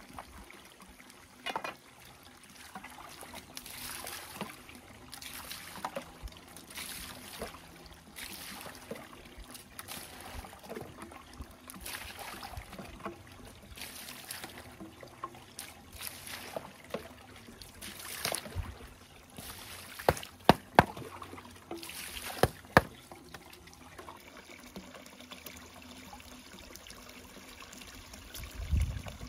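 Water splashing and trickling in repeated strokes, about one every second or so, with a few sharp knocks about two-thirds of the way through.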